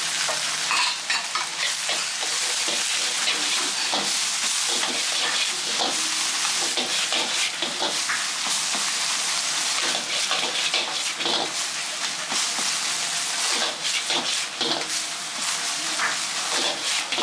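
Fried rice sizzling in a wok over a gas flame while a metal ladle stirs and presses it, scraping and knocking against the wok many times.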